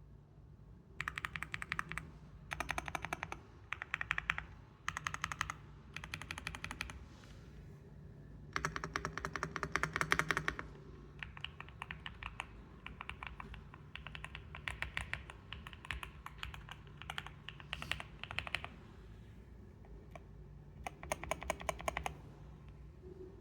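Fast typing on a mechanical keyboard: dense runs of sharp key clicks in bursts of one to two seconds, broken by short pauses.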